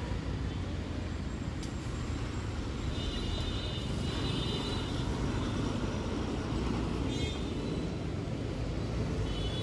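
Road traffic on a city street: a steady low rumble of passing vehicles. A thin high tone is held for about two seconds near the middle and comes back briefly at the end.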